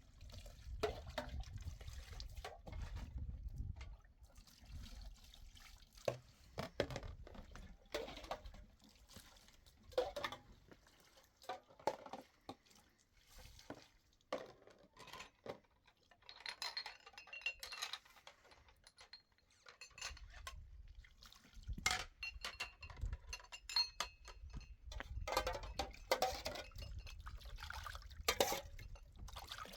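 Dishes and pots clinking and knocking together, with water sounds among them; a few of the clinks ring on briefly.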